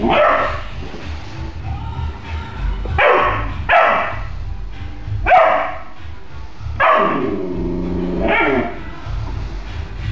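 Doberman puppy barking, about six sharp barks spaced unevenly, with one longer drawn-out bark about three-quarters of the way through. Background music runs underneath.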